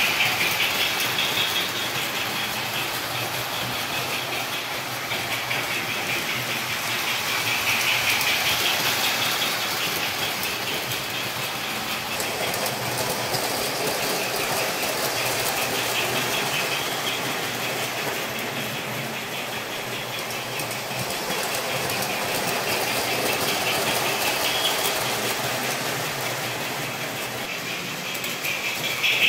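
O-scale three-rail model trains running on the layout's track, a steady whir and rumble of motors and wheels that grows louder and fades as trains pass close several times.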